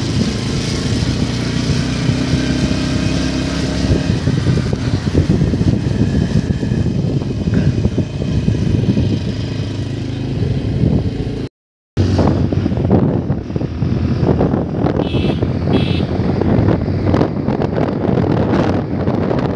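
Motorcycle engine running while riding, with wind buffeting the microphone. The sound drops out completely for about half a second near the middle.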